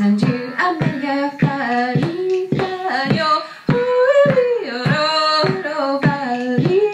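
A woman singing a lively melody into a microphone over a steady percussive beat of about two strokes a second.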